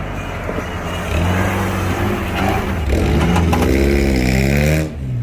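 A 4x4 off-road vehicle's engine working hard, its pitch rising and falling unevenly, then dropping off abruptly near the end.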